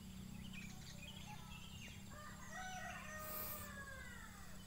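A rooster crowing once, faintly: one long call of about two seconds that falls away at the end. Small bird chirps come before it, over a steady low background noise.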